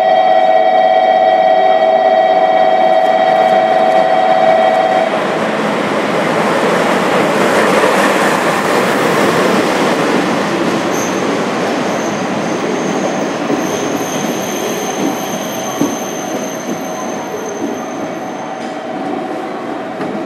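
A JNR Class DE10 diesel-hydraulic locomotive hauling six 103-series electric cars draws into a station platform, its wheels and train running past. A steady high tone sounds at first and cuts off about five seconds in. From about halfway a thin high wheel and brake squeal rings as the train slows, stopping suddenly near the end.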